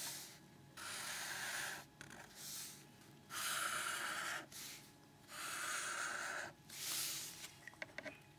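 Felt-tip marker drawing straight lines on notebook paper: a dry, scratchy squeak about a second long for each stroke, four main strokes with shorter ones between.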